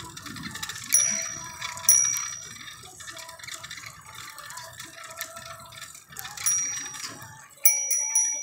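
Bicycle bell dinging several times: once about a second in, again a second later, then around six and a half seconds and twice near the end, each ring fading out. Underneath is a low rumble of riding that drops away shortly before the end.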